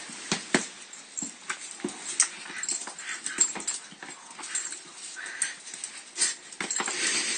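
Puppy wriggling and playing on a tile floor: scattered sharp clicks and scrapes of its claws and paws on the tiles, with snuffling and a short whimper about five seconds in.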